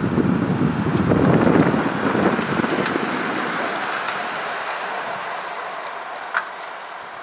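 Wind buffeting the microphone, easing off about halfway through, over a steady hiss from a pack of road-racing bicycles rolling past, which slowly fades. One short sharp sound near the end.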